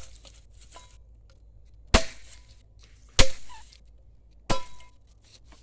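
A blade chopping at a taquara bamboo cane to sharpen its end into a point. There are three sharp chops about a second and a quarter apart, each with a short ringing tail.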